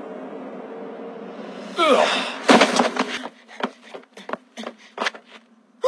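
Animated fight sound effects: a swish and a heavy hit about two seconds in, then quick running footsteps on dirt.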